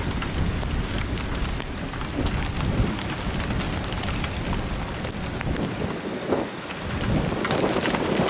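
Heavy rain falling on the vehicle, with many individual drops striking close by as sharp ticks over a steady low rumble.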